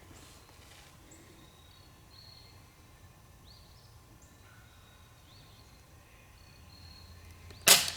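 Quiet background with faint bird chirps, then near the end a single sharp crack from a .22 breakbarrel spring air pistol firing.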